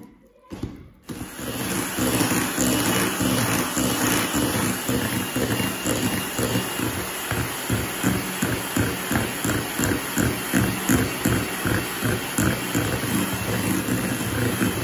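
Electric hand mixer switched on about a second in, its twin beaters whisking thick chocolate cake batter in a glass bowl; the motor runs steadily with a pulsing about three times a second.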